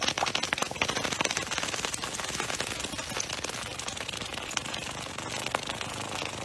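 Liquid fizzing in a plastic cup, a fast crackle of tiny pops that thins out and gets quieter over a few seconds.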